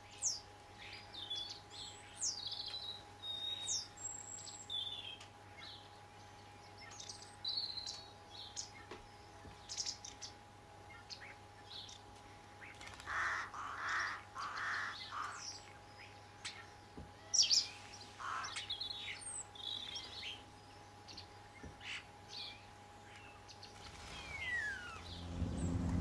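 European starlings calling: a string of short whistles, downward-sliding notes and clicks, with three short rasping notes about halfway through. A low call begins near the end.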